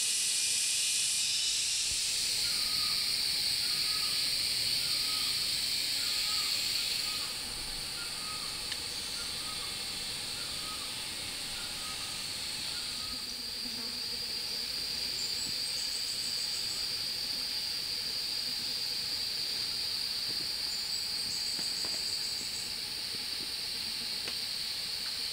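Insect chorus in the forest, a steady high-pitched drone. A bird chirps repeatedly in the first few seconds, and twice later a short fast high trill stands out.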